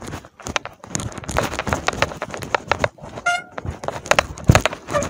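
Bicycle rattling and clattering as it is wheeled over a bumpy dirt path, in a quick run of irregular knocks, with a brief squeak about three seconds in.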